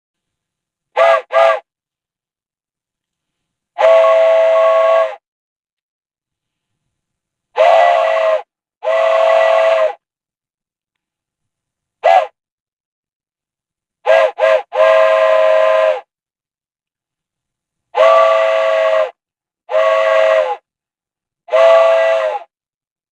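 Train whistle blown in a series of separate blasts: short toots, some in quick pairs, and longer blasts held for a second or more, with silence between. Each blast sounds several steady tones together as a chord.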